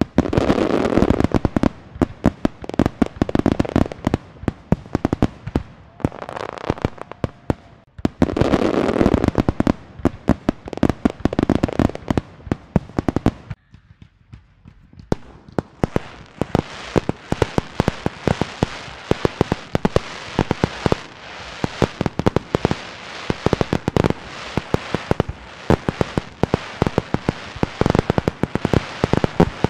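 Fireworks display: rapid, dense volleys of bangs and crackling, with a short lull about halfway through, after which the crackling becomes near-continuous.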